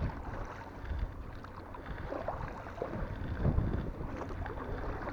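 Wind buffeting the microphone over water lapping against a small boat, with scattered light knocks and one louder low thump about three and a half seconds in.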